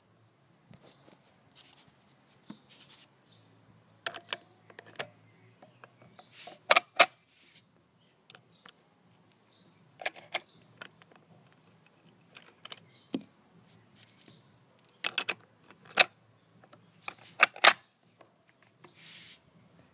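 Sharp metallic clicks and clacks at irregular intervals, some in quick pairs, from handling a Hakim 8mm rifle's action and its stripper clips.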